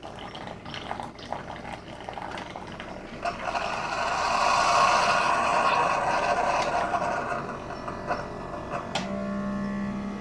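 Keurig K55 single-serve coffee maker finishing a brew: coffee trickles into a mug, then a steady hiss for about five seconds as the last of the water and air is forced through the K-Cup pod. A steady low hum starts near the end.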